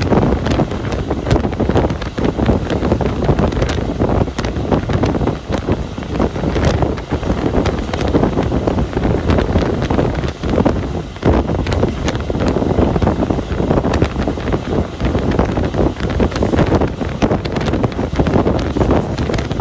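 Wind buffeting the microphone aboard a moving passenger train, over the steady running rumble of the train.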